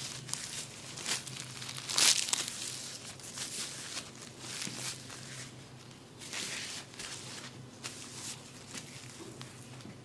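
Close-up rustling and crinkling of hands rubbing over hair and skin during a massage: irregular strokes, the loudest about two seconds in.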